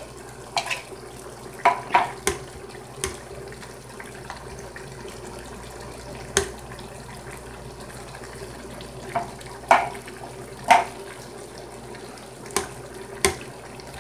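A spatula scraping tomato paste out of a can and knocking it off into a cooking pot: about a dozen sharp, irregular knocks over a steady hiss.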